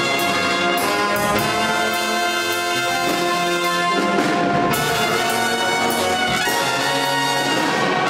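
Jazz band with saxophones, trumpet and trombone playing a funk tune over drums and electric guitar, the horns holding sustained chords.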